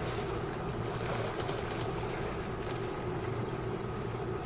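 A boat's engine running steadily, a constant drone with wind and water noise over it.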